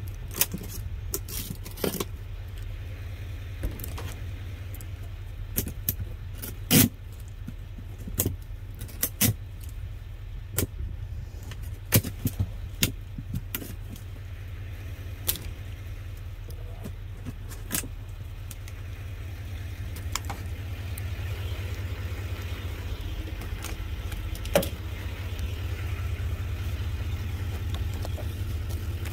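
Irregular clicks, crinkles and knocks of plastic clamshell packs and cardboard produce boxes being moved about by hand, over a steady low rumble. The handling sounds thin out in the last third.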